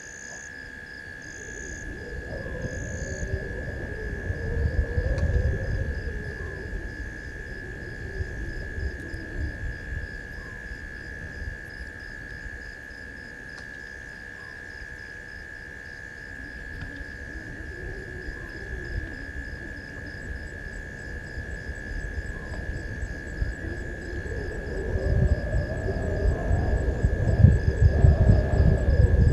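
Night bush chorus: one steady high trill with a fast, even chirping over it. A low rumbling noise swells a few seconds in and again, louder, near the end.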